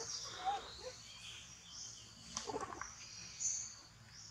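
Outdoor jungle ambience: a steady high-pitched hum, with a few short chirps and squeaky calls.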